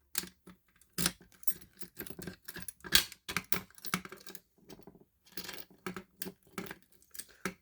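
Irregular clicks and rattles with keys jangling, as a fire alarm pull station is handled and reset with its key.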